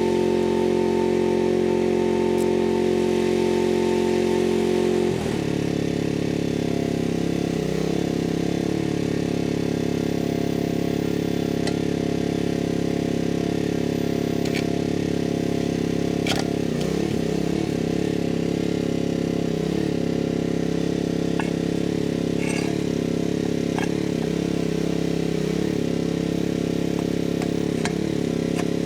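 Loader engine running steadily. About five seconds in, the revs drop to a lower speed, then hold with small rises and falls in pitch.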